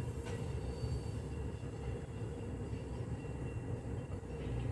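Freight train cars rolling slowly in reverse: a steady low rumble of wheels on the rails, with a faint thin high squeal.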